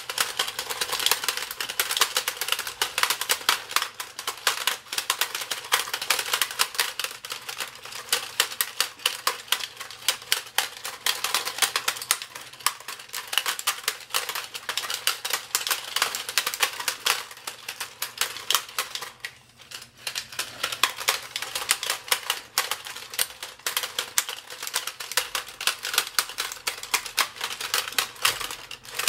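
Rapid, irregular plastic clicking and clacking of a two-player Iron Man vs Hulk fighting toy, its punch controls being mashed by both players, with a brief lull about twenty seconds in.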